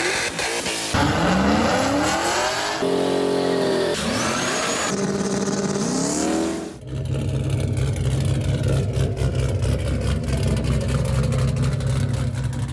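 A motor vehicle engine revving up and down in several short segments cut hard one after another, then running steadily for the second half.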